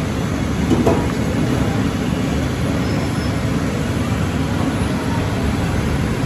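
Steady low rumble of background noise at a roadside food stall, with a short louder sound about a second in.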